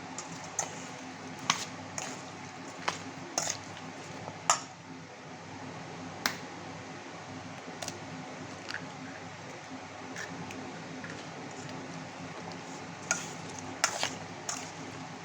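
Raw chicken pieces being mixed with egg and spices in a bowl: soft squishing, with irregular clicks and taps of a utensil or the bowl, more of them near the end, over a steady low hum.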